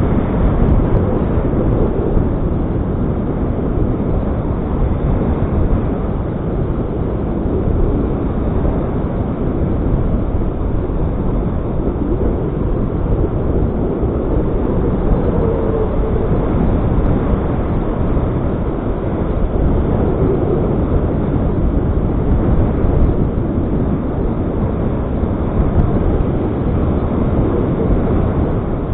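Strong wind blowing across the microphone: a steady, loud low rumble.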